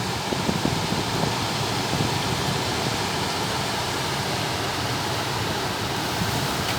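Steady rushing noise of a small fishing boat under way in rough water, with water rush and wind buffeting the microphone.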